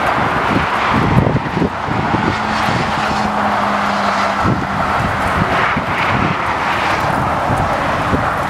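Road traffic: cars passing one after another at speed, a steady rush of tyre and engine noise, with a short steady low hum in the middle.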